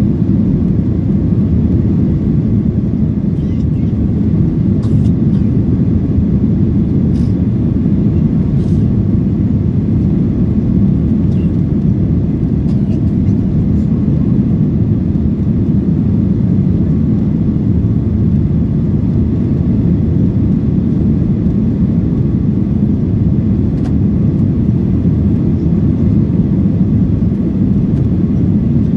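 Steady low rumble of jet engine and airflow noise heard inside the cabin of a Boeing 737-900 in flight, with its CFM56-7B turbofans running. A few faint clicks sound a few seconds in.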